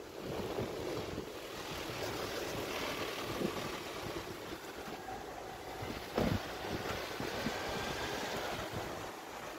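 Steady rushing wind noise on the microphone with a fluctuating low rumble, and a brief thump about six seconds in.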